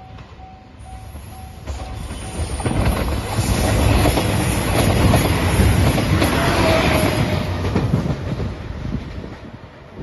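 Level crossing warning bell dinging about three times a second. Then a JR Shikoku 2700 series diesel express train passes close by, with engine and wheel-on-rail noise that builds, peaks midway and fades away near the end, covering the bell.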